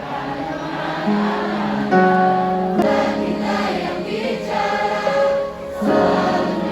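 Live concert music: a slow passage of held chords, with many voices singing together.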